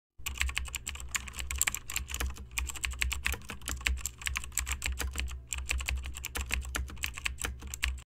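Computer keyboard typing: rapid keystroke clicks, many a second, with a couple of brief pauses, cutting off suddenly at the end.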